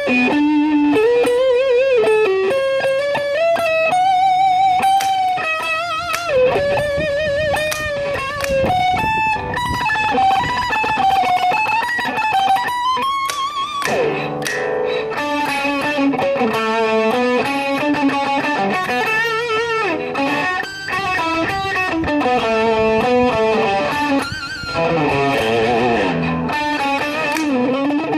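Fender YJM Stratocaster electric guitar played through an overdriven Marshall DSL40C tube amp. It plays a single-note lead line with wide vibrato on the held notes, then fast scalar runs in the second half.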